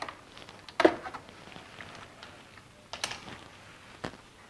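Clicks and knocks of a screwdriver working the Torx screws on a motorcycle's plastic radiator shroud. There is a louder knock about a second in, a short clatter of clicks near three seconds, and one more click about four seconds in.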